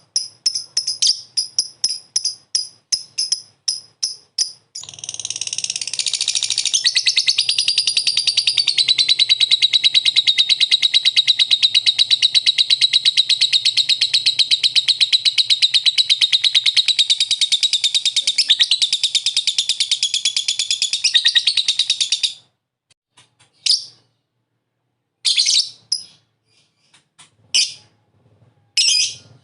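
Lovebird 'ngekek': a run of sharp chirps, about three or four a second, then a long unbroken rapid chattering trill of about seventeen seconds that stops abruptly, followed by a few short separate calls.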